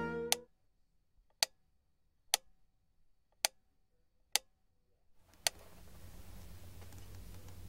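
Wooden mechanical metronome ticking about once a second, six sharp ticks, then stopping. A steady low hum and hiss comes in just before the last tick.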